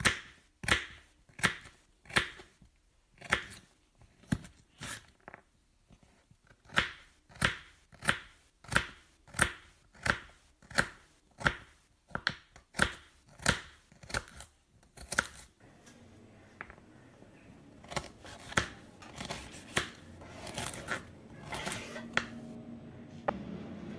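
Kitchen knife chopping a red onion on a wooden cutting board: sharp, evenly spaced knocks of the blade hitting the board, about one and a half a second. After about two thirds of the way there is quicker, quieter chopping, and near the end the knife scrapes the chopped onion off the board onto a plate.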